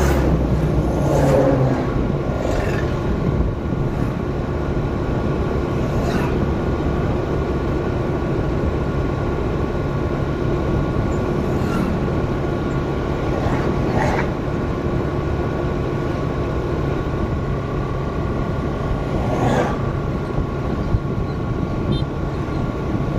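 Steady running noise of a vehicle travelling along a highway, engine and road noise together, with a few brief louder noises along the way.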